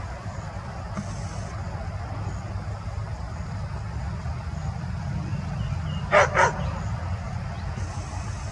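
Two short barks in quick succession about six seconds in, over a steady low rumble.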